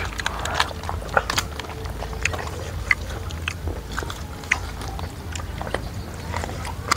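Someone eating: irregular crunchy, wet clicks of biting and chewing food, a few a second, over a steady low hum.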